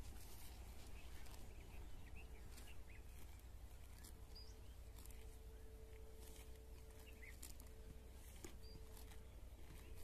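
Cows grazing: faint, irregular tearing and crunching as grass is ripped up and chewed, with a few faint bird chirps.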